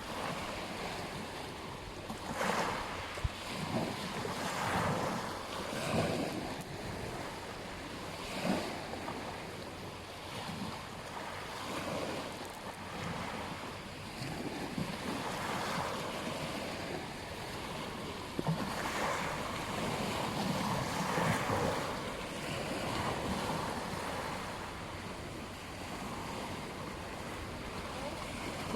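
Surf on a beach: waves breaking and washing in a continuous hiss that swells every few seconds, with wind on the microphone.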